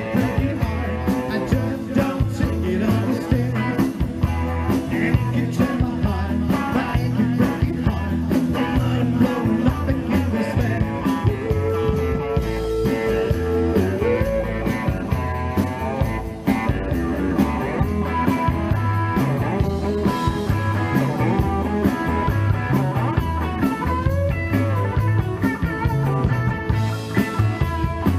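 Live rock band playing on stage through a PA: electric guitar over bass and drums with a steady beat, with a held guitar note about halfway through.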